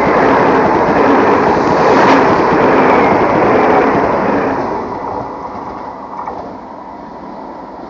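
High-speed train passing at speed: a loud rushing of wheels and air that fades away after about four and a half seconds as the train moves off.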